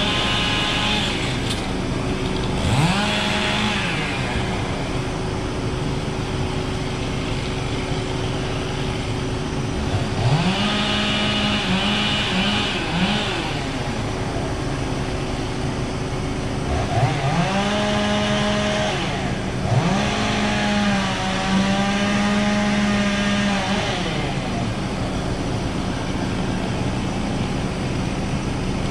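A small engine revved four times, each rev rising quickly in pitch and holding at high speed for a second or a few, over a steady running noise; the longest rev comes near the end.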